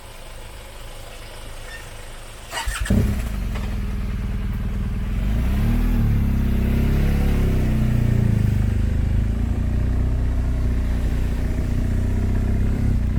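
A BMW R1200GS Adventure's boxer twin is started with a short burst from the starter about three seconds in. It then runs with a brief rise and fall in revs and settles to a steady idle.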